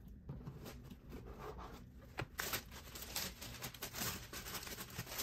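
Tissue paper rustling and crinkling in irregular bursts as it is unfolded inside a cardboard gift box.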